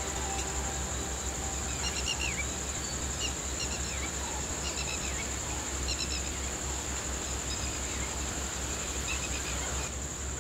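Ambience of insects trilling steadily at a high pitch, with short bird chirps repeated now and then over it and a low steady hum underneath.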